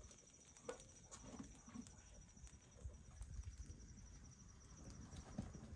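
Near silence: faint outdoor background with a thin, high, evenly pulsing tone and a few soft knocks.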